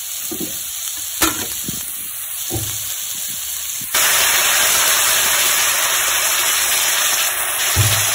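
Strips of pumpkin peel and potato sizzling in a hot iron kadhai, with one sharp knock of the metal ladle against the pan about a second in. About four seconds in, the sizzle jumps suddenly to a much louder, steady hiss.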